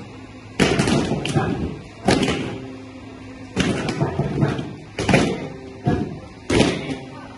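Loud thuds at irregular gaps of about a second: the barefoot stamps of a group of Odissi dancers on a wooden floor, mixed with hand-drum strokes that leave a short low ring.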